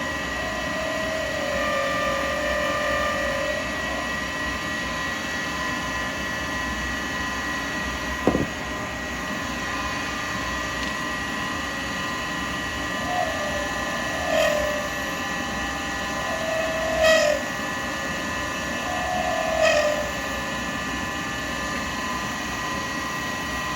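Wood lathe running steadily with a constant high whine, while a carbide tool cuts the spinning acrylic pen blank in several short passes that come and go. A few sharp clicks sound as the tool meets the work.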